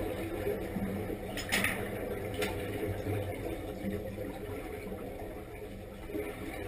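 Underwater noise heard through a submerged camera: a diver's helmet exhaust bubbling over a steady low rumble, with two sharp clinks about a second and a half in, less than a second apart.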